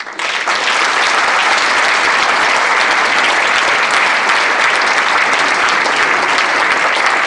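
Audience applauding, many hands clapping together; it starts abruptly and holds at a steady strength.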